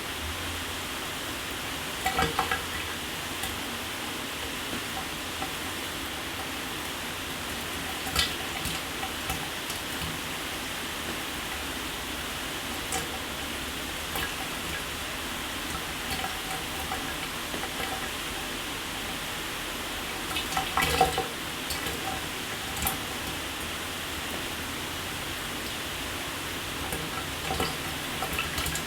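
Shower running: a steady hiss of falling water spray, broken by a few short louder spatters of water, the strongest about 21 seconds in.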